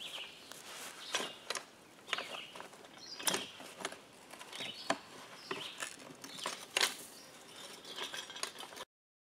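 Pipe wrenches tightening a threaded joint on a 1 1/4 inch steel well pipe, making irregular metal clicks and scrapes as the jaws bite and are reset on the pipe. The sound stops abruptly near the end.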